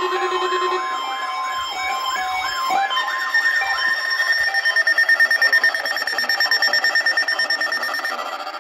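Weather radio receivers sounding their alarm during a weekly tone-alarm test: a steady warning tone with a warbling siren repeating over it. About three seconds in, the sound changes to a higher steady tone with a fast pulsing beep, which fades near the end.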